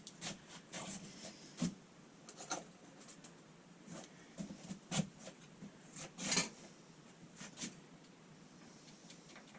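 Light metal clicks and scrapes from a tool working the small set screws of a lathe spindle's lock collar as they are loosened. The sounds come in an irregular scatter, loudest twice around the middle.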